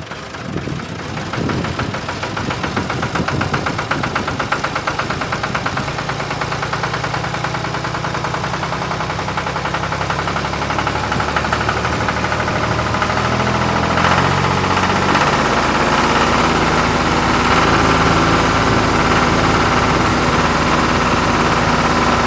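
A heavy vehicle's diesel-style engine running with a fast, even knocking rhythm. It grows louder over the first few seconds and then holds steady.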